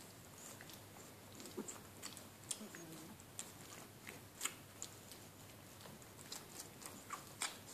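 A Doberman mother licking and nuzzling her puppy: irregular wet smacking and clicking of her tongue and mouth, with a sharper smack about halfway through and another near the end.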